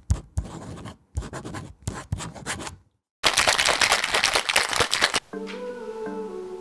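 Logo-animation sound effects: scratchy strokes like a pen writing, in three short bursts with brief silences between them, then a loud noisy rush lasting about two seconds. Near the end soft guitar music begins.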